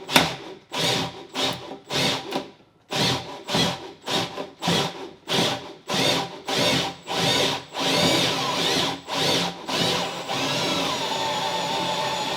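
Power drill turning a long auger bit down through a wooden floor and subfloor. It runs in short bursts about two a second, then runs steadily for the last couple of seconds.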